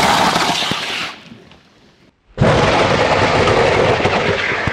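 Plumber's Hero compressed-gas drain opener fired into a clogged sink drain, a loud hissing blast that ends about a second in, then a second, longer blast starting a couple of seconds later. The gas blows back up through the sink rather than clearing the Orbeez clog.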